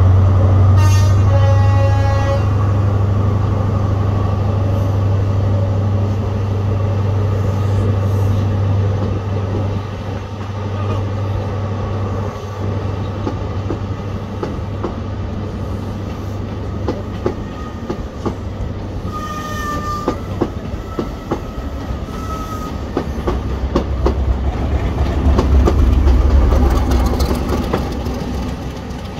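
Diesel-hauled passenger train running past, with a brief horn blast about a second in. Its wheels clatter over the rail joints, and near the end the rear diesel locomotive passes close by, its engine growing loud, then fading as it draws away.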